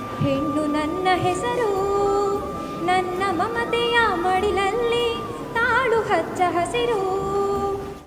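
A woman singing solo into a handheld microphone, a slow melodic line of held notes with vibrato. The singing cuts off abruptly at the end.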